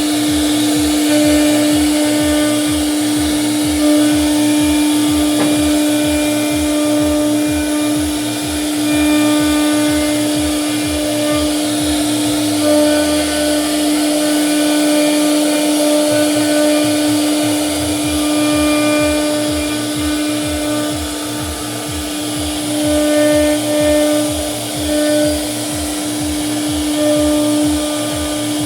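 CNC router spindle running with a steady high whine while it cuts wood, over a regular low pulsing from the machine's cutting passes. The pulsing slides down and drops away for a few seconds near the middle, then resumes.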